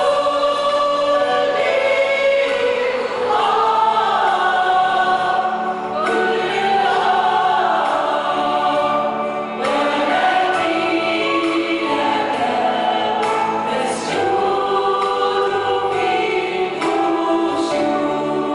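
A group of women singing an Arabic Christian worship hymn in harmony into microphones, a lead voice over backing voices, with long held notes.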